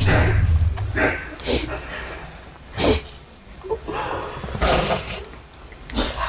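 A person crying: sniffling, sobbing breaths that come in irregular bursts, the sharpest about three seconds in.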